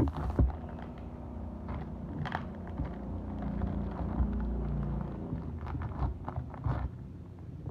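Plastic wrapper of a Roma Sandwich chocolate biscuit packet crinkling and tearing as it is opened by hand, in scattered crackles, over a low steady rumble.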